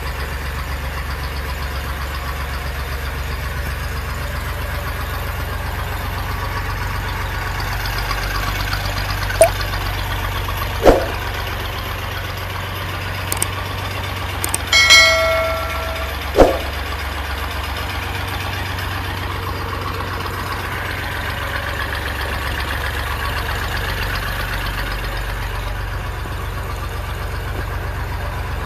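Engine of a mini borewell drilling rig running steadily, with a few sharp knocks. About halfway through come two clicks and a short bell chime from a subscribe-button animation.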